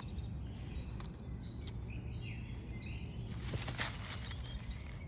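Quiet outdoor ambience: a steady low rumble of wind or microphone handling, with faint distant bird chirps.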